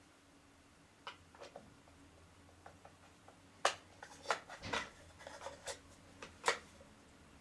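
Hands working on an extension cord with a small metal tool: a series of sharp clicks and taps, a few in the first half and more and louder from about halfway through.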